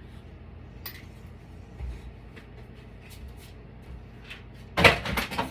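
Hard parts being handled and set down on a tabletop: a click about a second in, a soft knock, then a quick run of loud knocks and rattles near the end.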